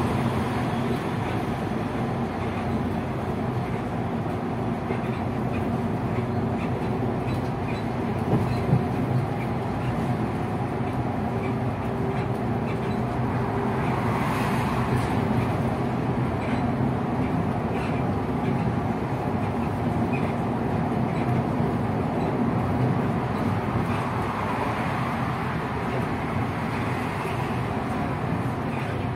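City bus in motion: a steady drone of engine and road noise, with a couple of short knocks about eight to nine seconds in.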